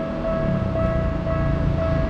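Japanese railroad crossing warning bell ringing over and over, about two strikes a second, over the low rumble of a train.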